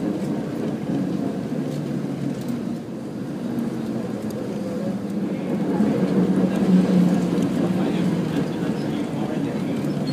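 San Francisco streetcar running along its rails, heard from inside the car: a steady low rumble of motors and wheels that grows a little louder about six seconds in.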